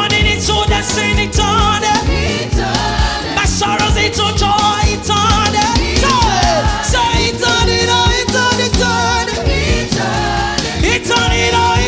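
Live gospel praise-and-worship music: voices singing over a band with a steady beat. About six seconds in, one voice slides down in pitch.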